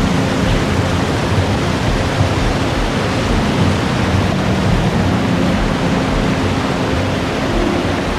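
Steady, loud rush of fast-flowing water from a rocky mountain stream near a waterfall.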